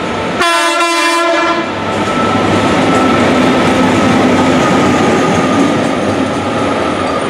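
Class 69 diesel locomotive, a rebuilt Class 56 with a Class 66-type EMD engine, sounds one horn blast of about a second, starting half a second in, then passes close by with its diesel engine running loudly.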